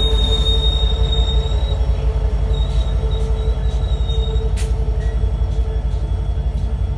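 Amtrak passenger train moving through the station, its diesel locomotive and cars making a heavy, pulsing rumble. A high, thin wheel squeal sounds on and off during the first four seconds, and there is one sharp clank about four and a half seconds in.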